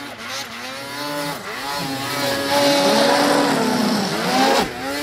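Ski-Doo snowmobile engine revving on the run-in to a jump. The pitch rises and falls a few times, then holds high and steady for about two seconds under full throttle, and drops sharply near the end as the throttle comes off at the takeoff.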